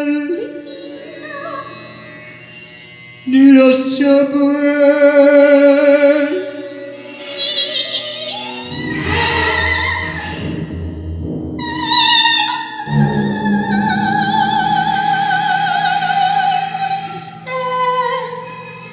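Music: a voice singing long held notes with vibrato in an operatic style. About two-thirds of the way through, a low steady drone comes in underneath.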